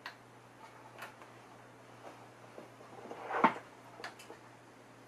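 Light clicks and taps from hands handling parts of an IMSAI 8080 computer's front panel and chassis during reassembly, with one louder knock about three and a half seconds in. A faint steady low hum runs underneath.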